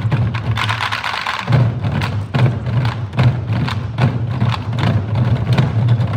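Korean nanta drum ensemble playing a fast, even rhythm: deep drum thuds with sharp stick clacks, perhaps on drum rims or wooden frames. Between about half a second and one and a half seconds in, the deep drum drops out and only a higher clatter remains.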